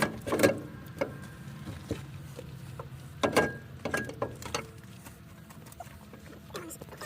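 Scattered metallic clinks and knocks of hand tools on the alternator's mounting bolts, the loudest about three seconds in, over a steady low hum.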